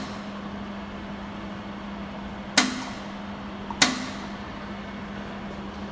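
Pulsed laser welder firing two single shots about a second apart, each a sharp snap, over a steady hum.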